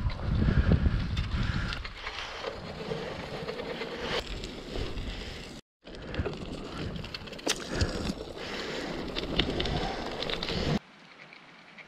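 Bicycle tyres rolling over a gravel track, a rough crunching rattle with scattered sharp clicks, with wind buffeting the microphone for the first two seconds. About a second before the end it drops suddenly to faint outdoor ambience.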